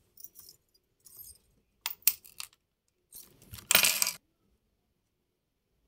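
A handful of small metal rings clinking and jingling together in a hand, in several short bursts, the loudest and longest about four seconds in.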